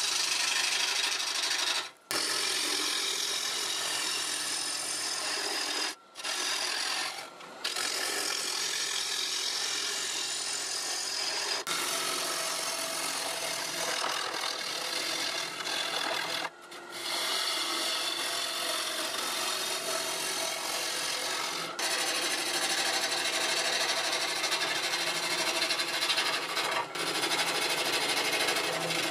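Gouge cutting a spinning ash bowl blank on a wood lathe: a steady rasping hiss of wood being shaved away, with a low hum underneath. It breaks off briefly a few times, about 2, 6, 7 and 16 seconds in.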